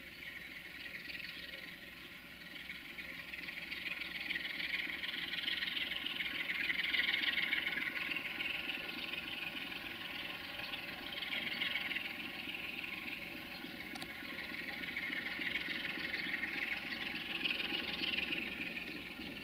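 A Sulzer-engined 060-DA diesel-electric locomotive running at a low, steady idle. Over it a loud, shrill chorus of summer insects rises and falls in slow waves every few seconds.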